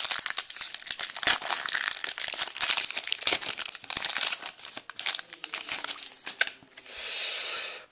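Foil wrapper of a 2011 Elite football card pack being torn open and crinkled by hand: a dense run of crackles, then a smoother, softer rustle near the end as the cards slide out of the wrapper.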